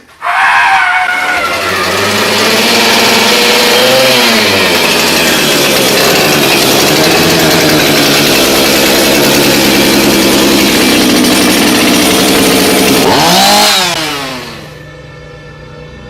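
Chainsaw engine starting up suddenly and running loud, its pitch swinging up and down twice as it is revved. It drops away about a second before the end, leaving quieter spooky music.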